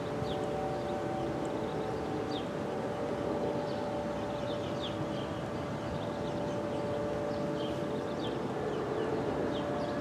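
Outdoor warning sirens holding steady tones at a few different pitches, some dropping in and out, with short high chirps scattered over them.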